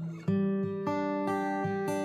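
Background music: acoustic guitar playing chords, a new chord struck about a quarter second in, then notes changing every half second or so.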